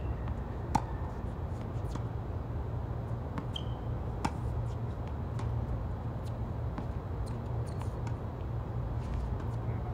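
Tennis ball struck by rackets and bouncing on a hard court during a rally: sharp pops every second or two, the loudest about a second in and again about four seconds in, over a steady low rumble.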